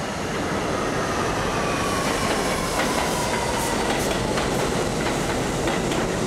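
R68 subway train entering a station and running past on the rails: a loud rumble with a whine that slides down in pitch. About halfway through, repeated wheel clicks over rail joints join in.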